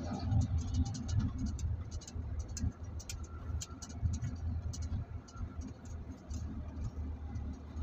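Inside a moving car: a steady low rumble of engine and road, with frequent light clicks and rattles.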